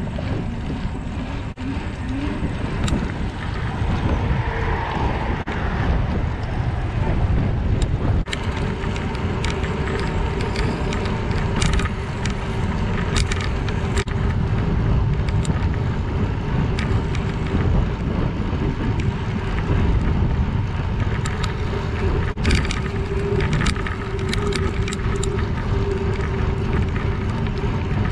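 Wind buffeting the microphone of a camera on a moving bicycle, with the rumble of the tyres rolling along the trail and occasional light ticks.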